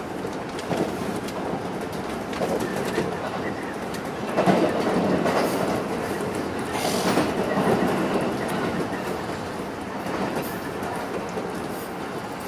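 Electric commuter train running, heard from just behind the driver's cab: steady running noise with wheels clattering over rail joints and points, loudest from about four to eight seconds in.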